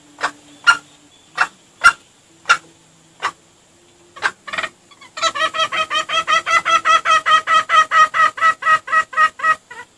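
Junglefowl clucking: single sharp clucks about two a second, then from about halfway a fast, even string of clucks, about six a second, growing louder and stopping just before the end.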